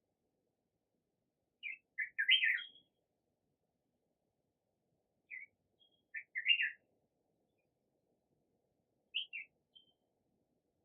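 A bird chirping in short groups of quick, high chirps, a few seconds apart.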